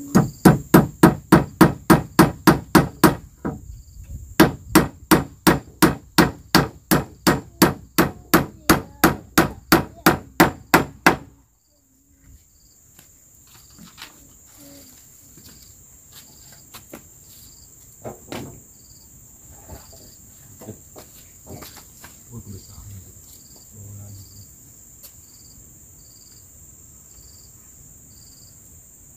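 Hammering on wood: fast, even blows about four a second in two runs with a short break after about three seconds, stopping abruptly about eleven seconds in. After that a steady high insect drone remains, with a few faint knocks.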